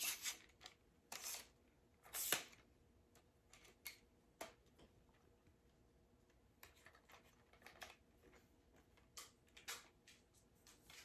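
Faint, scattered clicks and rustles of hands handling and adjusting the parts of a ring light stand, with quiet gaps between them.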